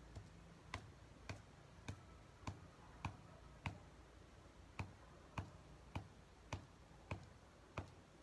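Steady series of quiet, sharp clicks, a little under two a second, with one beat skipped about four seconds in.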